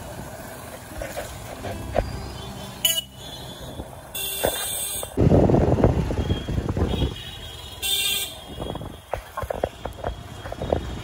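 Busy night street traffic: motorbike and scooter engines running past, with several short horn honks and a louder rush of engine noise about five seconds in.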